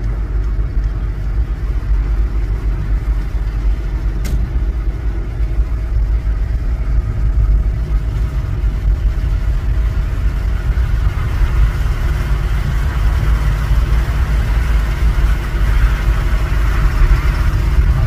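Car driving on a winding road, heard from inside the cabin: a steady low engine and road rumble with tyre noise, growing a little louder in the second half.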